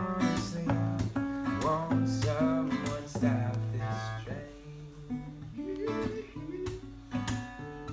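Acoustic guitar playing: low bass notes under picked and strummed chords. It goes quieter around the middle and picks up again near the end.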